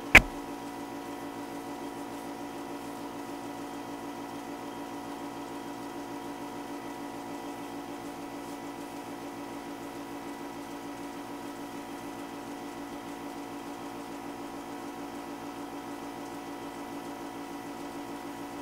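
One sharp keyboard click just after the start, as the ping command is entered, then a steady electrical hum with a fast, even flutter throughout.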